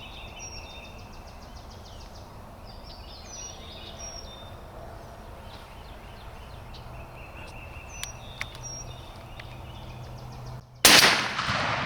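Small birds chirp faintly in the background, then about eleven seconds in a single loud gunshot goes off and rings out as it fades: the shot that drops a wild turkey gobbler.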